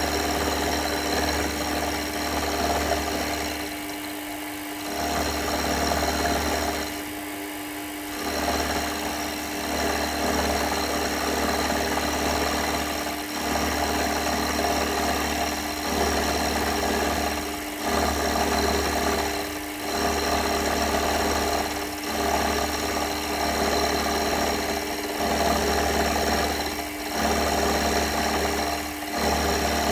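Workshop machine tool running steadily, its low hum dropping out briefly about every two seconds in a regular cycle.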